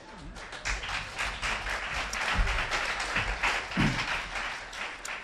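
Audience applauding: dense clapping that builds, holds for a few seconds and dies away near the end, with a couple of low knocks underneath.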